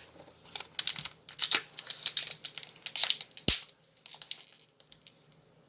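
Crinkling and crackling of a foil Pokémon booster pack wrapper being handled, a quick run of small crackles ending in one sharp tap about three and a half seconds in.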